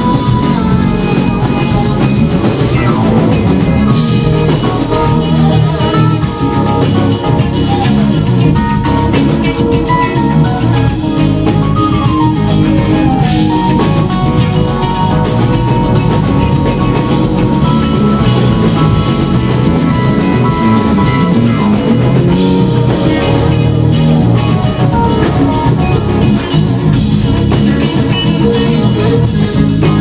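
A funk band playing live: drum kit, electric guitar and keyboards together, loud and dense, with a steady low end.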